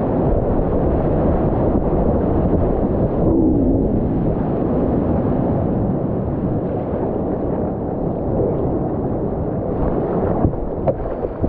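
Loud, steady rush of whitewater rapids churning around a kayak as it runs down a rocky drop, picked up close to the water by a GoPro. The sound turns briefly duller about three seconds in.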